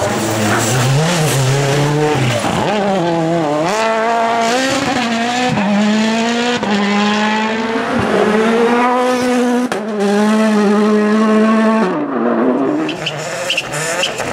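2017-spec World Rally Car's turbocharged four-cylinder engine at full throttle, its pitch climbing and then dropping sharply at each quick gearshift several times over. Near the end the pitch dips and rises again as the car comes off and back onto the throttle.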